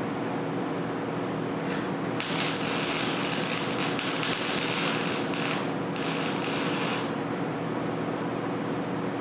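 Electric arc welder plug-welding sheet steel floor panel through pre-drilled holes: a loud crackling hiss starting about two seconds in, a brief break, then a second shorter burst, over a steady hum.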